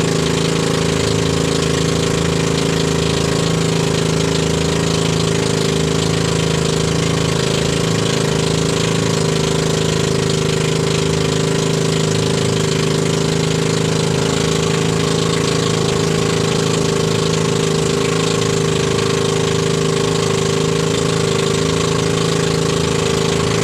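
Outrigger fishing boat's engine running steadily while underway, one unchanging note with no rise or fall in speed.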